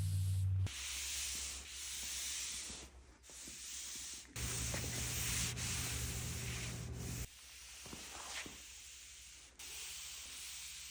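Ceramic top coat being wiped across a wooden tabletop, a hissing rub in several long strokes with short breaks between them.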